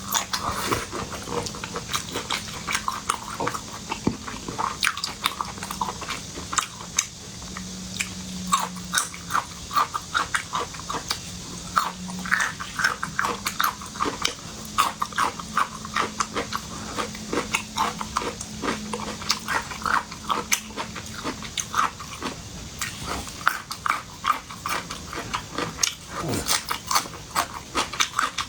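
Close-miked eating sounds of a person chewing shrimp and octopus: rapid wet chewing and smacking with many short clicks.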